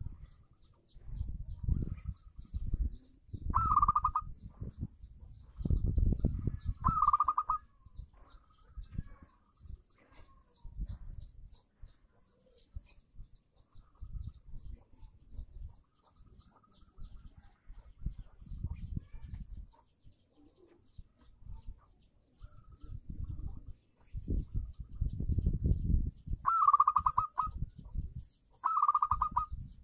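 Zebra dove (perkutut) cooing: four short trilled coos, a pair a few seconds in and another pair near the end. Bouts of low rumble come and go throughout, with faint high chirps of other small birds behind.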